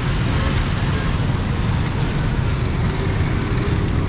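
Busy street traffic: motorcycles and auto-rickshaws running past close by over a steady engine rumble.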